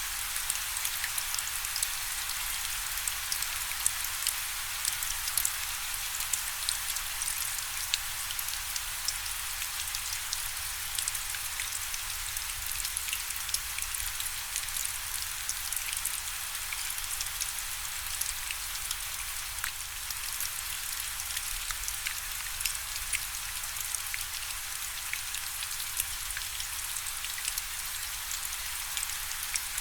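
Steady rainfall: a constant hiss of rain with many separate drops ticking sharply on a surface.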